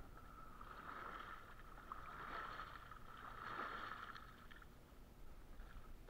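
Water splashing as legs in waders kick to paddle an inner-tube float, starting about half a second in and dying away a little after four seconds.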